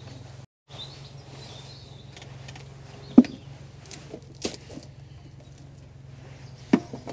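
Sharp clicks and knocks from metal tin lids being pried off and handled, the loudest about three seconds in, over a steady low hum.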